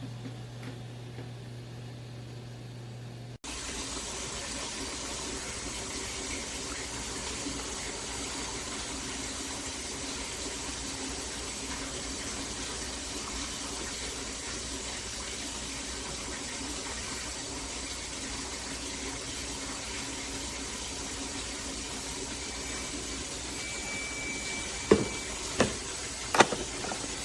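AIRMSEN mini countertop dishwasher running, with a steady wash of water spraying inside the tub. A low motor hum comes at first, before the sound switches abruptly to the spray. Near the end a brief high tone sounds, followed by three sharp knocks.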